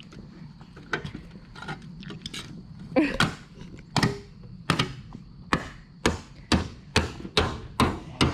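A hand hammer striking repeatedly: a few light knocks, then from about three seconds in a run of about ten sharp blows that speed up to roughly two a second.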